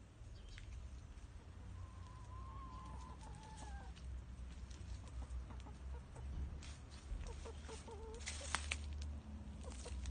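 Domestic hens clucking: a drawn-out wavering call a couple of seconds in, then a quick run of short clucks near the end, with a sharp click among them and a low rumble underneath.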